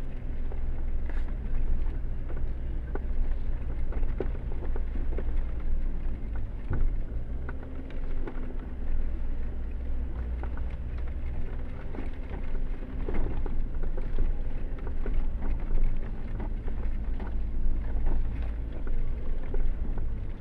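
Jeep engine running steadily as it crawls over a rutted, muddy off-road track, with scattered knocks and rattles from the body and suspension over the bumps.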